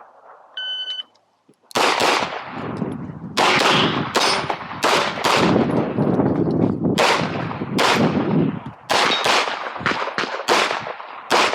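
A shot timer's electronic start beep, then a handgun firing a rapid string of shots, mostly in quick pairs with short pauses between groups: an IPSC stage run.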